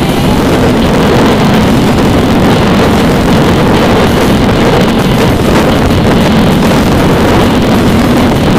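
Citroën C4 driving noise heard inside the cabin: engine, tyre and wind noise running steadily at city speed, loud and rough.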